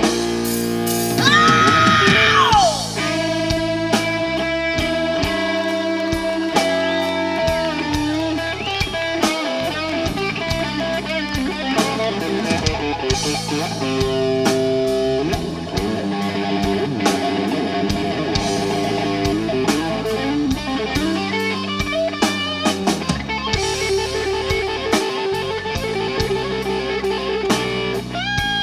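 Live blues-rock band playing an instrumental section: lead electric guitar carrying sustained, bent notes over electric bass and drum kit.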